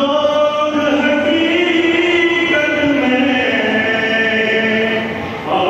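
Devotional chanting in long melodic phrases, each note held and sliding slowly to the next; near the end it breaks off briefly for a breath and a new phrase begins.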